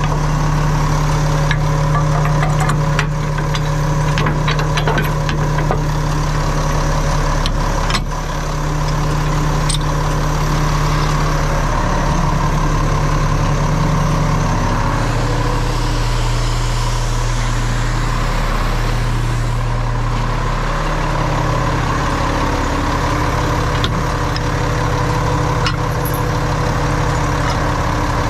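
Roll-off garbage truck's diesel engine running steadily, its low note shifting in pitch a few times partway through. Occasional sharp metal clinks sound over it.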